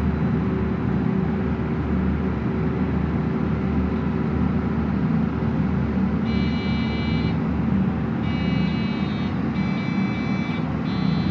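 Dell OptiPlex 780 desktop sounding its power-on beep code over a steady low hum: beeping starts about six seconds in, one beep, a short pause, then three more close together. It is the warning of a fault at start-up with no picture, which the repairer says is most often a RAM or CMOS battery problem.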